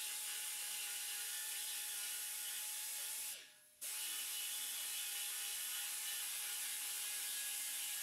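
Welding torch tack-welding cast bronze sculpture sections together: a steady hiss with a faint constant hum, which fades out a little past three seconds in and comes back abruptly about half a second later.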